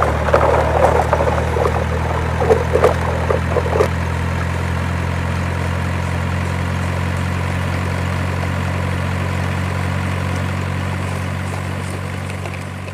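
Low, steady truck engine idling, with some clicks and clatter over the first four seconds; it fades out near the end.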